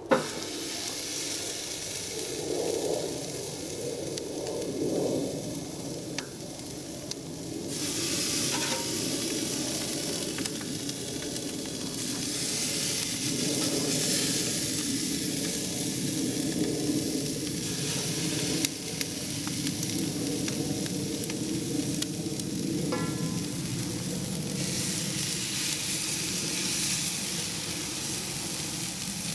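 Butterflied chicken drumsticks sizzling on the hot grate over a charcoal fire, the sizzle swelling louder in stretches as more pieces are laid down. A few sharp clicks sound over it, the loudest right at the start.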